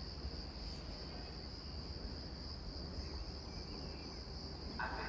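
Railway station ambience between trains: a steady high-pitched chirring drone over a low rumble, with no train passing.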